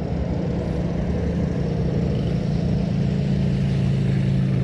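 Boat motor running steadily, a low hum that grows slightly louder over the few seconds.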